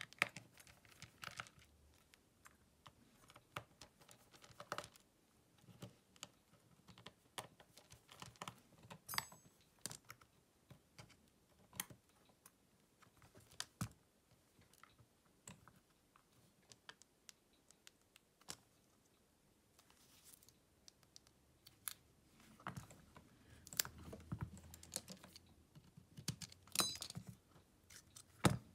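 Faint, irregular small clicks and taps of repair tools and smartphone parts being handled on a work surface. They grow busier about three quarters of the way through, with some low handling rustle.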